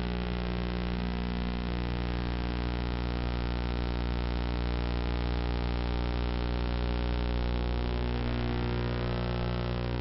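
Steady electrical mains hum on the recording: a constant buzz with many evenly spaced overtones that never changes in pitch, with nothing else heard over it.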